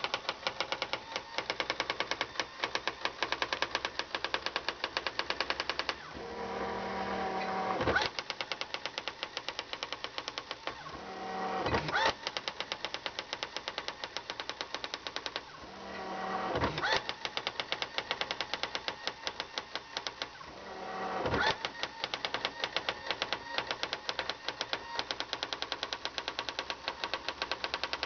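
Brother GX-6500 electronic daisy-wheel typewriter printing lines of text in rapid, evenly spaced strikes. Four times, a carriage-return whir rises and ends in a knock before printing resumes.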